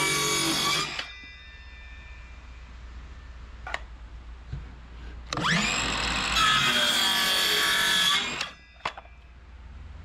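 Milwaukee circular saw cutting lumber in two runs. The first cut ends about a second in as the motor winds down. About five seconds in the saw spins up again with a rising whine, cuts for about three seconds and stops. A couple of light clicks fall in the quieter gaps.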